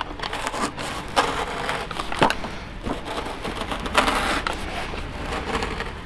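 Utility knife slicing lengthwise through foam pipe insulation: an uneven run of scratchy, crunching strokes with a few sharper clicks as the blade cuts the foam. The knife cuts cleanly and easily.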